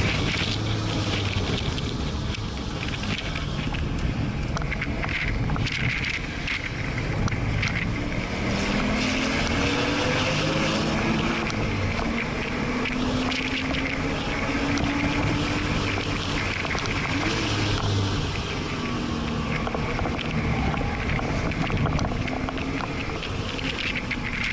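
Porsche flat-six engine heard from inside the cabin, pulling under load, its note climbing through the revs and dropping back several times as the driver lifts and changes gear. Wind and road noise run under it.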